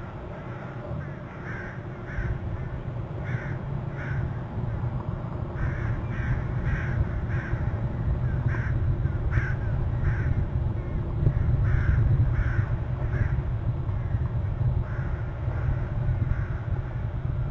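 Crows cawing repeatedly: short, harsh calls in twos and threes, about one group a second, over a steady low rumble of wind.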